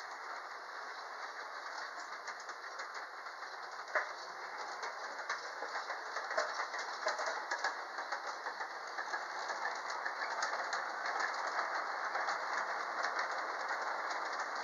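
G-scale model trains running on track: a steady whirr of motors and wheels with many quick clicks of wheels over rail joints. There is a sharper click about four seconds in, and the running gets somewhat louder in the second half.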